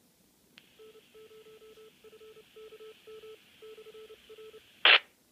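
Repeater signal heard through a Baofeng UV-5R Plus handheld's speaker: a click, then a low beep keyed in short and long pieces like a Morse-code identifier over a steady hiss, ending in a loud burst of squelch-tail noise when the signal drops. The repeater answering on the new memory channel shows it is programmed correctly.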